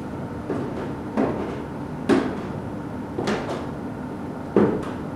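Slow, heavy footsteps coming down basement stairs, about one step a second, each a hollow thud with a short echo; the loudest steps fall near the middle and near the end.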